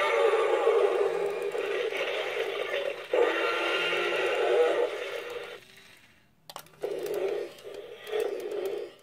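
Toy dinosaur's electronic roar through its small speaker: a long, harsh roar with a brief break about three seconds in, then, after a short pause, a run of shorter growls.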